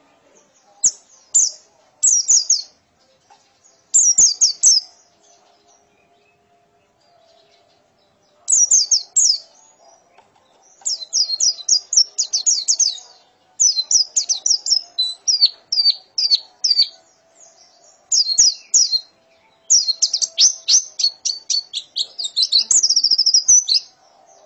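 White-eye (pleci) singing in rapid bursts of quick, high, falling notes, the ngekek chatter song. Short phrases come at first, then longer unbroken runs, the longest near the end.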